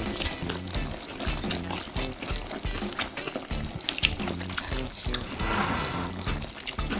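Chopsticks clicking against a grill pan and stirring wet, saucy marinated duck, with lettuce leaves crinkling as a leaf wrap is filled and folded. Soft background music plays throughout, and a denser crackly, wet stretch comes about five and a half seconds in.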